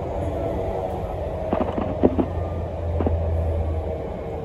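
Inside an E231-series electric commuter train running along the line: a steady low rumble and hum, with a quick cluster of sharp wheel clacks over the track about a second and a half to two seconds in and one more near three seconds.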